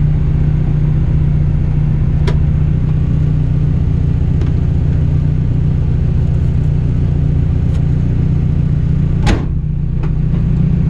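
Rally car's engine running steadily at speed on a stage, with a few sharp knocks and one loud thump about nine seconds in.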